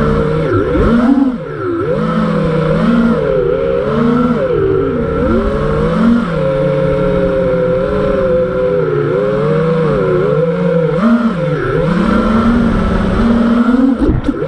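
Four brushless motors and 5-inch props of an FPV freestyle quadcopter (TBS Masterpilot 2400kV motors on a 4S battery) whining, the pitch rising and falling constantly with the throttle. There is a brief dip at about a second in and another near the end.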